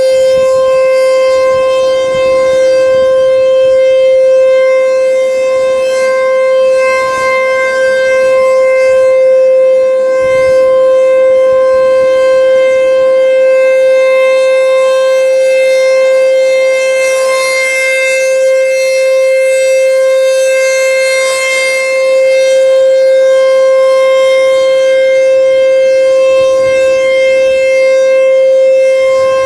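American Signal T-128 rotating electromechanical siren sounding a steady alert tone. The pitch holds level, and the sound swells and fades gently every few seconds as the horn turns.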